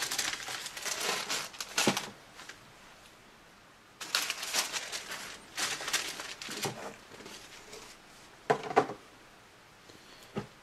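Tissue paper crinkling and rustling in bursts as it is folded back from a gift box, with a couple of short, sharp handling rustles a little past the middle.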